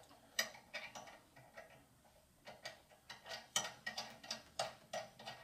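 Sharp metallic clicks and taps as nuts are fitted onto the gland studs of a cartridge mechanical seal on a centrifugal pump. The clicks are scattered at first, then come about three to four a second from midway.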